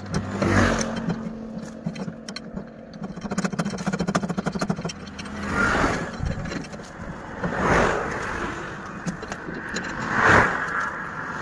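Vehicles driving past on the road one after another, each rising and falling in about a second, five times, with quick metallic clicking and scraping from a steel box spanner and bar working a truck's wheel nuts in the middle.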